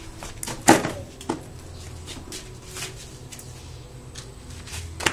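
Rubber flip-flop slapping on a concrete floor: one sharp slap a little under a second in, a lighter one about half a second later, and another just before the end.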